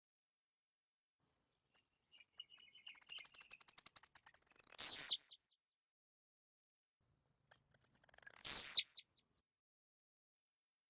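Blue-black grassquit (tiziu) singing, high-pitched. A run of rapid ticking notes builds into a loud, sharp falling phrase about five seconds in. A few more ticks follow, then a second phrase near the end.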